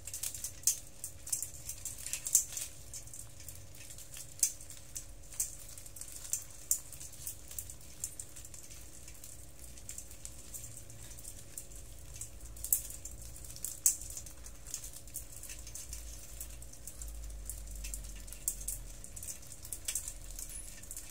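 Hundreds of small hermit crabs crawling over one another in a basin, their shells knocking together and against the basin's side in an irregular patter of light clicks and taps.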